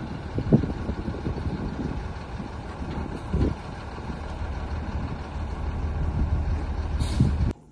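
An engine idling steadily, with a few short knocks or clanks over it. It cuts off abruptly near the end.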